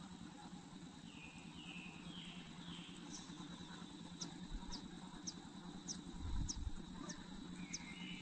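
Faint high-pitched chirps of nestlings begging: four short falling chirps, then a run of thin, quick descending peeps about two a second, over a low steady hum. A soft low rumble comes about six seconds in.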